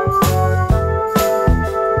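Background music: a keyboard tune over bass notes with a steady beat of about two beats a second.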